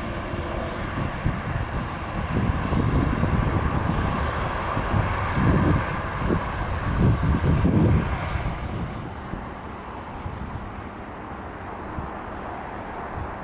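Airliner's engines passing and moving away: a loud, even rush of noise with an uneven low rumble that dies down about eight seconds in, leaving a quieter hiss.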